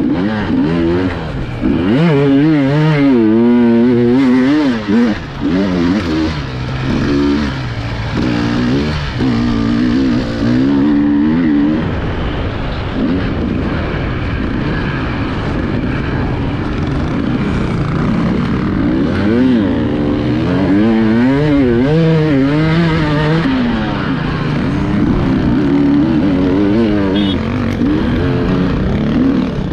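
Enduro dirt bike engines revving hard, their pitch rising and falling quickly as the throttle is worked over rough ground, with a steady engine drone underneath.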